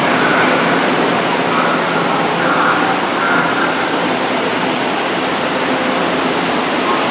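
Kobe Municipal Subway train running, a loud, steady rushing noise of wheels on rail, with faint high tones coming and going during the first half.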